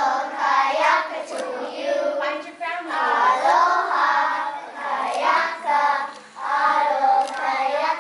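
A group of young children singing a song together in phrases, with brief pauses between lines.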